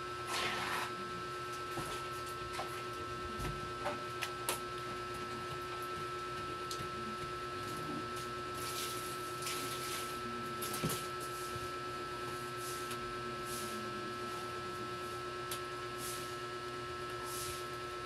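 A steady electrical hum made of two constant tones, a low one and a higher one, with a few faint clicks and brief soft rustles.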